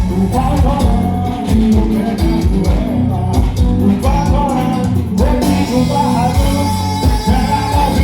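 Live music from a Brazilian band played loud through a sound system, with a strong, regular bass beat under a wavering lead melody and singing.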